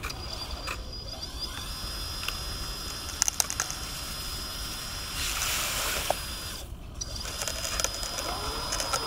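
Radio-controlled Komatsu HM300 articulated dump truck tipping its bed: a small electric motor whines steadily while the bed lifts, with a few sharp clicks, and about five seconds in a short rush as the load of wet gravel and mud slides out of the bed.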